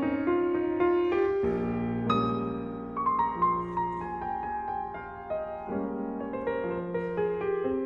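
Background piano music, soft and slow, with sustained chords and a melody line.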